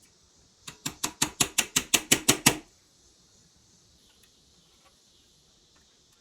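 A quick run of about eleven sharp taps or knocks, about six a second, growing louder and lasting about two seconds.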